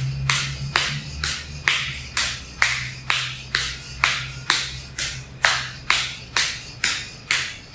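Kapalabhati breathing: rapid, forceful exhalations pumped out through the nose by the belly, each a short sharp puff of breath with a passive inhale between, about two a second in a steady rhythm.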